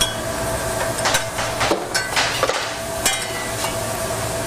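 Stainless-steel saucepan handled on a steel stovetop, giving several sharp metallic knocks and clinks spread over a few seconds, over a steady background hum.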